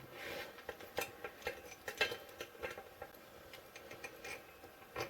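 Faint, irregular metal clicks and taps as a BMX bottom-bracket bearing and a compression tool are handled and fitted together.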